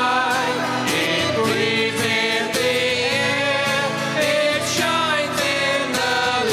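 Congregational worship song: singers with guitar and keyboard accompaniment and a steady beat.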